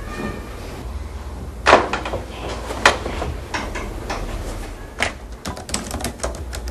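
A handful of knocks and clicks, like a door or cupboard being handled, over a low steady hum. The loudest is a heavy knock with a short boomy tail a couple of seconds in, followed by a sharp click, then a quick run of lighter clicks near the end.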